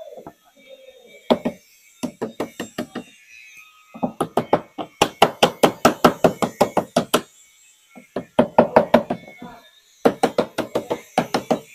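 Hammer tapping a chisel to cut a lead apron flashing, in four quick runs of sharp knocks, about four to five a second, with short pauses between them.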